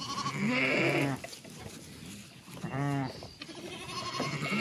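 Dorset sheep bleating twice, a call of about a second near the start and a shorter one around three seconds in.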